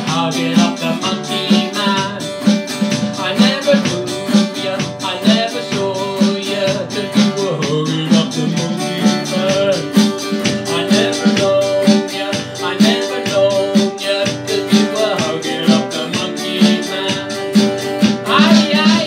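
Upbeat ska played on a strummed acoustic guitar with drums keeping a steady beat.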